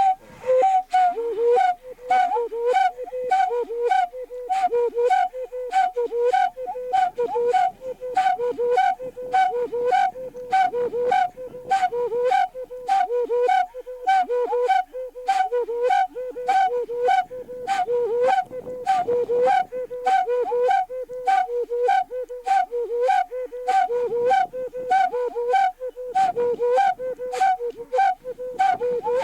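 Background music: a short whistle-like figure of two alternating notes repeating about twice a second, each note starting sharply, kept up without a break.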